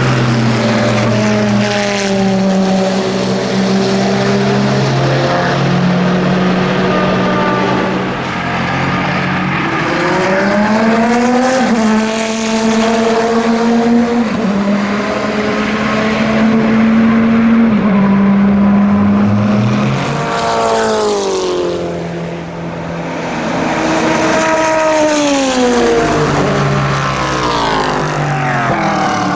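Chrysler Viper GTS-R's V10 racing engine at speed, the car passing close by. The engine note climbs under acceleration, holds, drops sharply about two-thirds of the way through, then climbs again.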